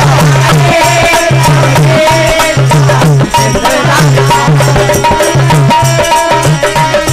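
Live bhajan music without words: a dholak beating a quick steady rhythm, small hand cymbals clashing on the beat, and a sustained melody line over them.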